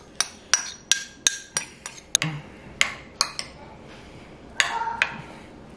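Metal spoon clinking against ceramic bowls: a run of quick sharp taps, about three a second, then a short softer scrape as the spoon stirs through rice and shrimp.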